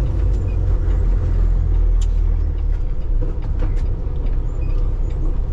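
Peterbilt semi truck's diesel engine running with a steady low rumble as the truck is manoeuvred, with a few light clicks over it.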